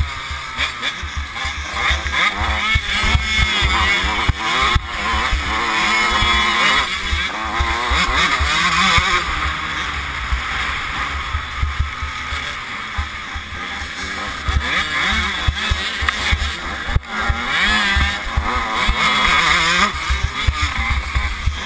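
Dirt bike engine revving up and down repeatedly while being ridden hard over rough ground, with wind buffeting the microphone and bumps thudding through.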